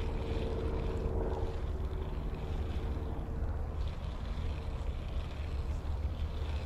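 Steady low hum of an engine, with a faint higher tone that fades out about two seconds in.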